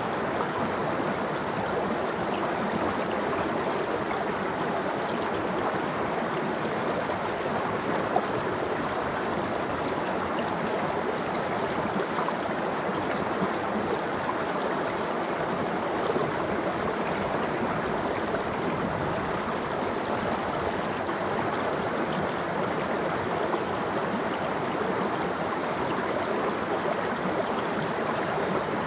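Stream water running over rocks, a steady rushing babble with small splashes.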